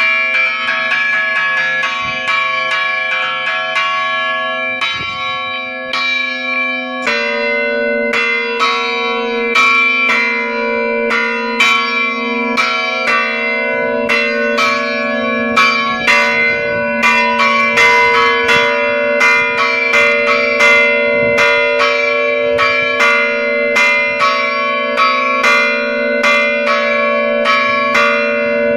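Several church bells struck by their clappers, pulled by hand on ropes, in a fast festive peal (repique a fiesta) heard close up from inside the belfry. Strikes ring over one another. About seven seconds in, another bell joins and the strikes come quicker and more regularly.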